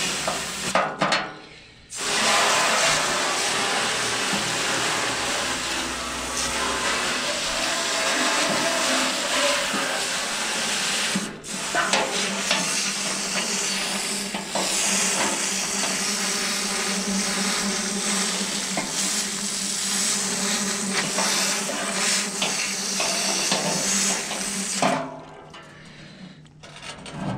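Pressure washer jet spraying into a steel mixer hopper, washing out concrete residue: a steady hiss of water on metal. It breaks off briefly about a second in and again near the middle, and stops shortly before the end.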